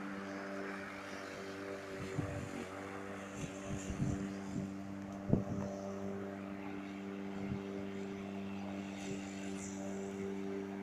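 Electric lawn mower's motor running with a steady hum while it is pushed across the grass, with a few low knocks, the loudest about five seconds in.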